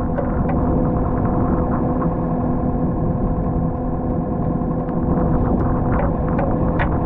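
Excavator's diesel engine running steadily under load, with sharp clanks and knocks of the bucket and steelwork near the end.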